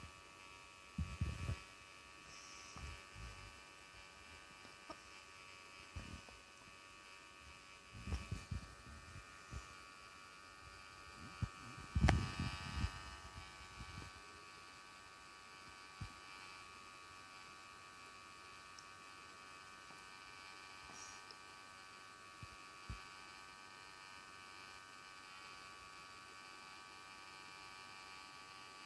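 Portable nebulizer buzzing steadily as it turns Ventolin into a mist to be inhaled, with a few soft bumps from handling, the loudest about twelve seconds in.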